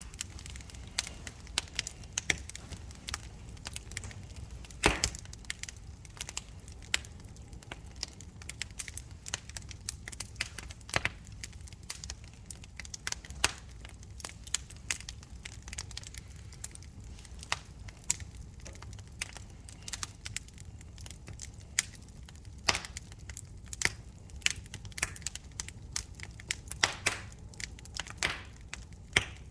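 Wood fire crackling in a fireplace: irregular sharp pops and snaps over a low steady rumble of the flames, with a few louder pops now and then.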